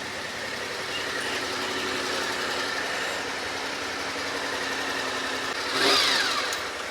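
A motor vehicle engine running steadily at low revs. About six seconds in, a louder vehicle sound swells and falls in pitch as it passes.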